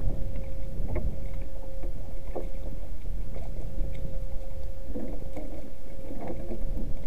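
Wind rumbling on the microphone over water lapping at a canoe, with a few light knocks of the paddle and gear against the hull and a faint steady hum underneath.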